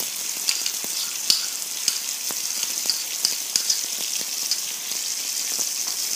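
Wet onion and cashew paste sizzling in hot oil in a pan as it is scraped in and stirred, a steady hiss with sharp pops and taps about twice a second.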